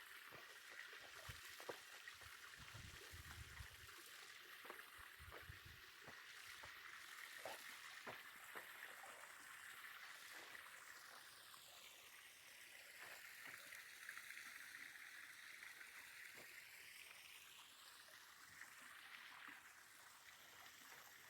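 Near silence: the faint steady rush of a stream, with a few soft scattered clicks.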